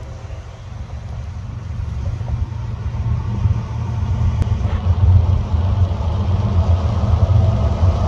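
Diesel locomotives of an approaching freight train, led by GE ES44 units, rumbling low and growing steadily louder as they near.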